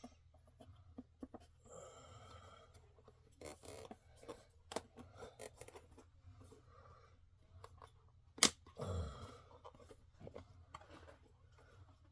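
Scattered light clicks and rustling of parts being handled, with one sharp knock about eight and a half seconds in.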